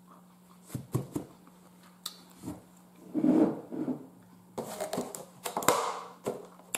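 Small table-side sounds of a person finishing a meal: scattered light clicks and knocks, a soft mouth-and-chewing noise about three seconds in, and rustling of something being handled in the second half, over a steady low electrical hum.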